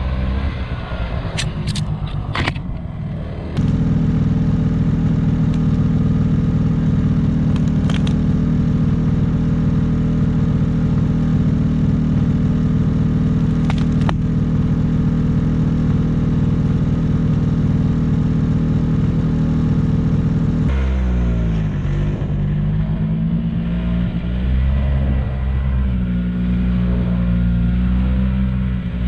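Yamaha Bravo 250cc two-stroke snowmobile engine running: after a few clicks, it steps up about three and a half seconds in to a loud, steady drone that holds for some seventeen seconds. Near the end its pitch rises and falls repeatedly as the throttle is worked.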